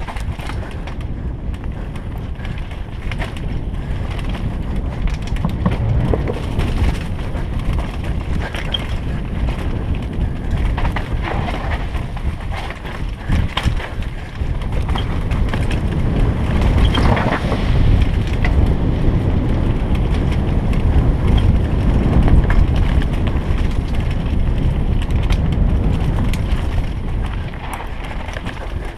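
Downhill mountain bike descending a rocky dirt trail at speed, heard from a helmet camera: wind on the microphone with the tyres on dirt and stones and the bike rattling at every bump. It grows louder about halfway through.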